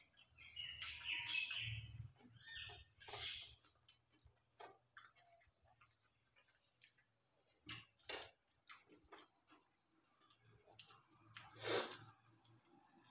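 Quiet eating sounds: chewing and fingers mixing rice and curry on steel plates, with scattered small clicks and one louder sharp sound near the end.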